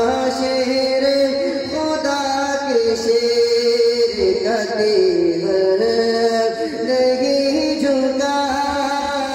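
A man singing a naat through a microphone, with long held notes that glide down and back up in slow, ornamented phrases.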